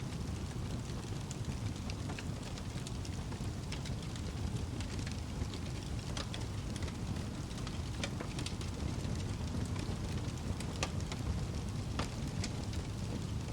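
Wood fire crackling in a fireplace: a steady low rumble of flames with irregular sharp pops and snaps.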